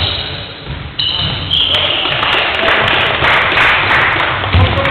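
Basketball game in a sports hall: players' calls and the hall's echoing noise, with short high squeaks of shoes on the wooden court. The low thuds of a ball bouncing come near the end.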